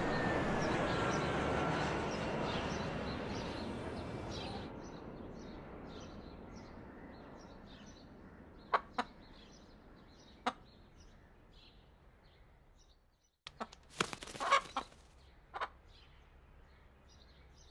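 Traffic and aircraft noise fades out over the first few seconds. Then, in near quiet, a rooster makes a few short, sharp clucks, followed a little before the end by a quick cluster of louder ones.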